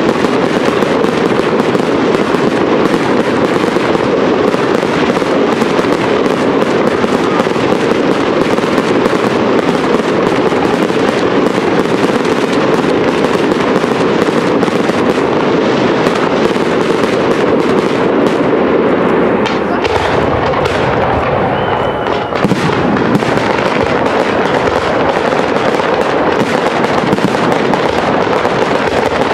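Professional aerial fireworks display: a dense, near-continuous barrage of shell bursts with crackling, the bangs running together with hardly a break.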